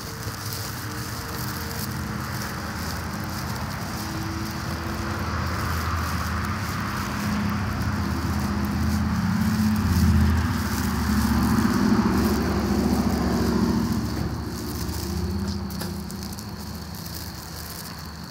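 A motor vehicle's engine running nearby, growing louder to a peak about ten to thirteen seconds in and then fading away.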